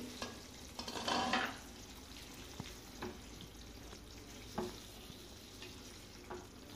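Spatula stirring thick potato curry in a nonstick kadai over a faint simmer. A louder scrape comes about a second in, then a few light taps of the spatula against the pan.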